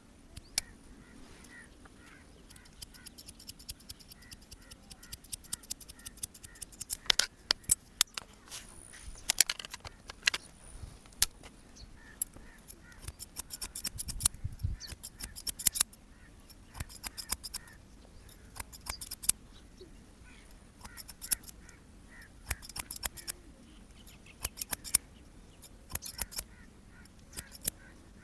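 Barber's scissors snipping hair fast, in rapid runs of sharp snips broken by short pauses.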